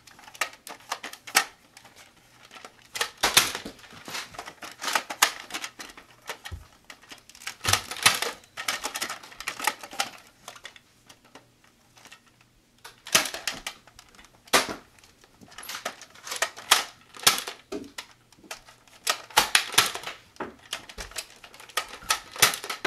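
Toy foam-dart blasters clacking as they are primed and fired, in several bursts of rapid clicks with short pauses between.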